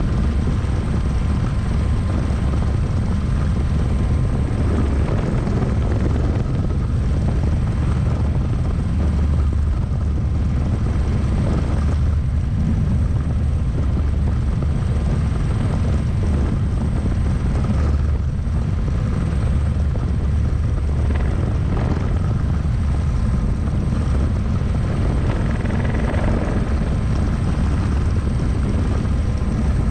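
Turbine-powered single-seat experimental helicopter in steady cruise flight, heard from inside its cockpit: a loud, steady drone of rotor and engine with a thin high whine over it.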